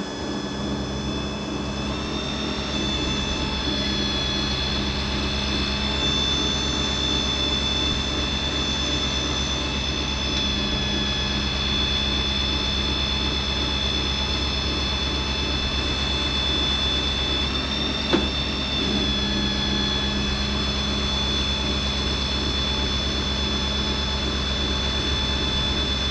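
A pump runs steadily while calcium chloride is pumped into a tire, giving a constant high whine over a low rhythmic rumble. There is one sharp click about eighteen seconds in.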